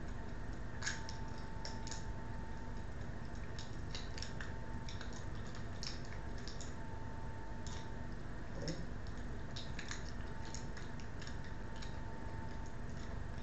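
Light plastic clicks and taps of a handheld two-way radio being put together by hand, scattered irregularly over a steady low background hum.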